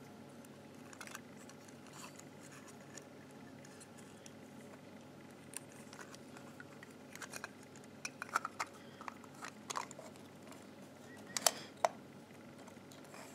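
Faint handling noise from a small plastic microscope housing being fitted back together by hand: scattered light clicks and rubs. They come sparse at first and more often in the second half, with two sharper clicks near the end.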